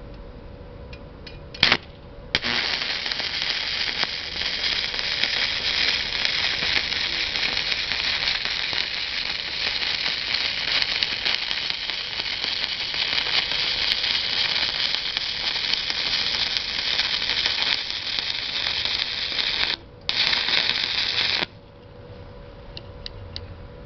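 Stick-welding arc from a 308L stainless rod on 1/8-inch stainless steel plate, run DC electrode positive at 80 amps on an inverter arc welder. A short strike comes about two seconds in, then a steady crackling hiss. It breaks off briefly near the end, restarts, then stops.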